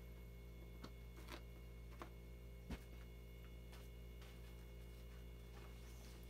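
Faint handling of vinyl inflatables: scattered light clicks and crinkles, with one soft thump a little under three seconds in, over a steady low hum.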